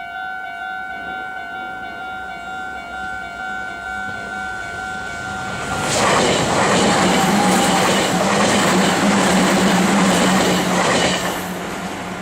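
A Japanese level-crossing warning bell rings in a steady, rapid repeating pattern. About six seconds in, a Meitetsu electric train passes through the crossing: loud rumbling wheel and rail noise with a steady low hum for about five seconds, easing off near the end.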